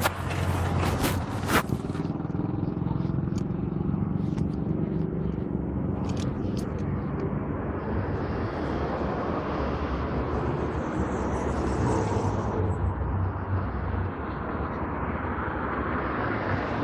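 Guadalajara light-rail car running, heard from inside the carriage: a steady rumble with a low hum. There are a few sharp clicks in the first couple of seconds, and a hiss swells up through the middle and fades again.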